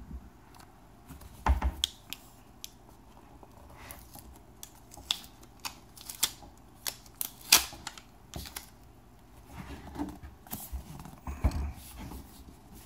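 Cardboard laptop box being handled and opened: irregular sharp taps, clicks and scrapes as the lid is worked off, with a couple of dull thumps, one about a second and a half in and one near the end.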